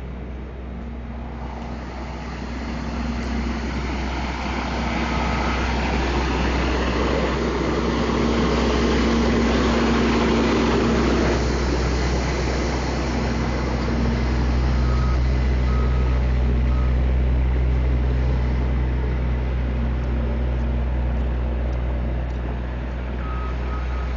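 Heavy truck or machinery engine running, growing louder a few seconds in. In the second half a reversing alarm sounds in two short runs of beeps, about one a second.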